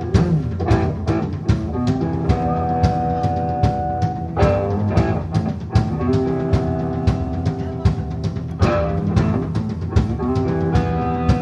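Live instrumental stoner rock from a guitar, bass and drum kit trio: long held, distorted guitar chords over bass, with steady drum hits.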